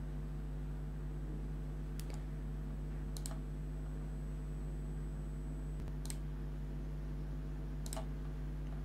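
Computer mouse clicking a few times, some of them quick double clicks, over a steady low hum.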